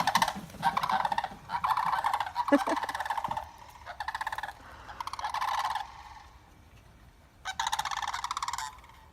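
Sandhill cranes calling: loud rolling, rattling bugle calls in a long run of overlapping bursts, a short lull, then another burst near the end.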